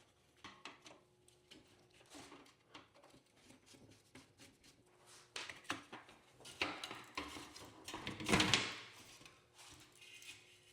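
Plastic-and-metal grille parts being handled and worked apart: scattered clicks, knocks and short scrapes as the Phantom grill insert comes free of the old grill shell, with a louder scrape or rattle about eight seconds in.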